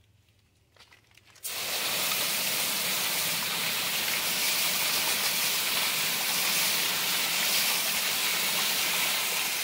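Garden hose spray nozzle jetting water onto ore rocks on a wire-mesh sifter set in a metal tub: a steady spraying hiss that starts abruptly about a second and a half in.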